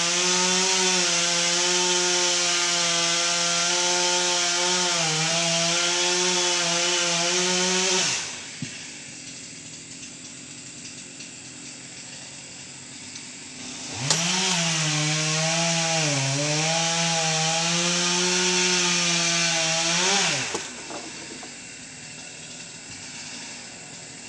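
Electric drill running while drilling holes, its motor whine dipping in pitch as the bit bites under load. It runs for about eight seconds and winds down, then spins up again about fourteen seconds in and runs for about six seconds before winding down.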